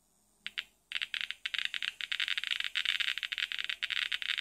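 Geiger counter clicking: a couple of single clicks, then from about a second in a rapid, irregular stream of counts. The probe is held over ash from a thorium gas mantle, and the high count rate shows the ash is radioactive.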